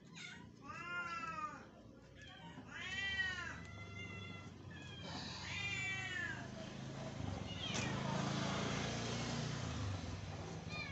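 Kittens meowing: about four separate rising-and-falling meows in the first six seconds, followed by a few seconds of scratchy noise.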